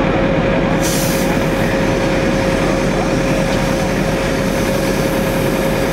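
Fire engines running at the scene: a loud, steady engine-and-pump rumble with a constant whine.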